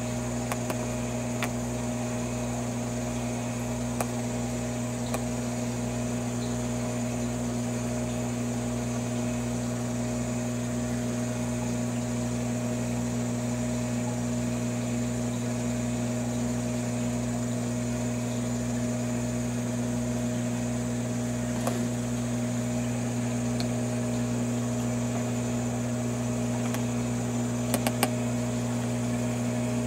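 Steady electrical hum with a faint high whine above it, broken only by a few faint ticks about 4, 22 and 28 seconds in.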